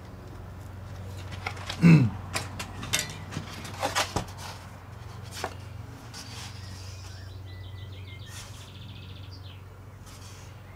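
Handling knocks and taps as the veneered model wing and its dihedral brace are pushed on and lifted from the wooden bench. There is a short, loud falling sound about two seconds in, and a few sharp knocks follow over the next few seconds, all over a steady low hum. A bird twitters faintly later on.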